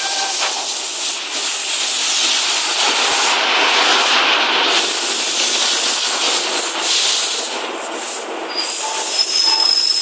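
Double-deck stainless-steel electric passenger train rolling past close by: a steady rush of wheel and rail noise, with a thin high wheel squeal coming in near the end.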